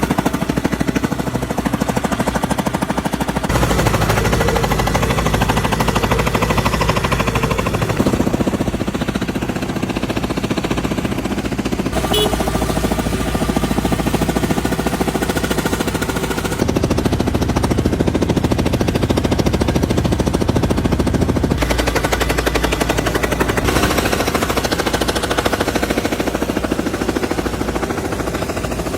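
Road-repair machinery hammering rapidly on pavement, a fast steady pounding with engine noise under it. The sound changes abruptly every few seconds as one machine gives way to another.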